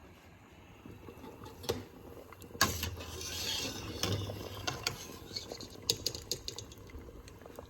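Kitchen handling at a pot of water: sharp clicks and clinks, with a splash of water for about a second and a half about a third of the way in.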